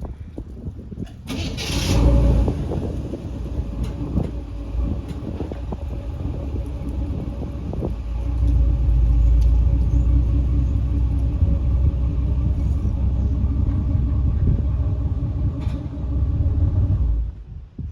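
A vehicle engine starts with a loud burst about a second in, runs steadily with a low rumble, louder again for a stretch in the middle, and shuts off abruptly near the end.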